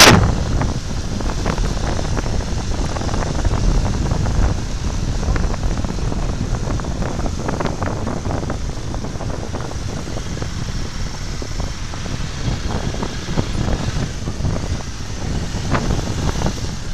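Wind rumbling on the microphone of a camera carried on moving motorcycles, with the motorcycles' engines running underneath and brief crackles now and then.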